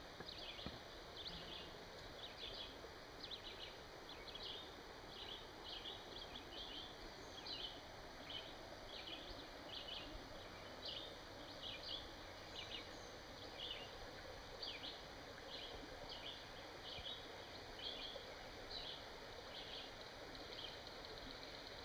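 Quiet riverbank ambience: a faint steady background hiss with a continuous run of short, high chirps from small creatures, irregular at roughly two a second.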